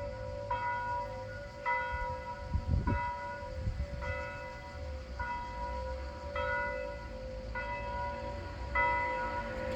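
Church bell ringing at noon, struck about once every 1.2 seconds, eight strokes in all, each ringing on over a steady lingering hum. A low rumble swells briefly about two and a half seconds in.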